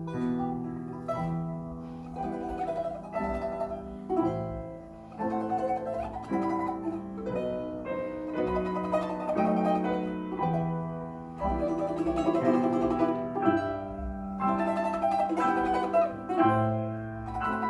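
Plucked-string instrument playing a lively folk-style tune, with a fluttering tremolo on the held notes, over an accompaniment of sustained lower chords.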